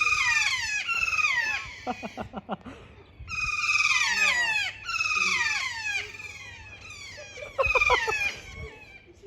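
Bird calling: four bursts of rapid, high, squealing notes that each slide downward, with a few quick clicks between the bursts.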